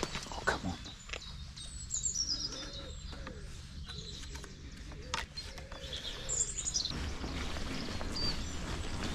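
Songbirds singing, with a high falling phrase about two seconds in and again near the middle, and low cooing under it, over a steady low rumble of wind. A few sharp knocks and clicks come from a wooden field gate and its latch being handled.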